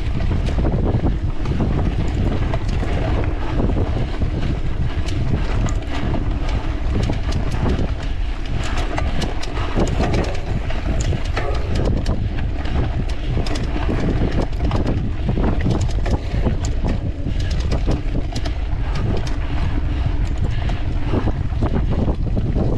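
Wind buffeting an action camera's microphone during a mountain bike ride, over constant irregular rattling and clicking as the bike runs over rough ground.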